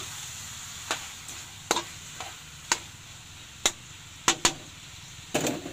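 Squid being stirred in a hot metal wok: the spatula clacks and scrapes against the pan about eight times, irregularly, over a faint steady sizzle.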